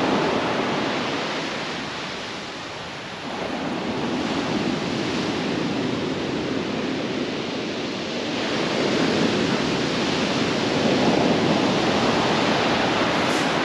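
Surf from a big swell breaking and washing back on a shingle beach, a continuous rushing that eases about three seconds in and then builds again. Wind buffets the microphone.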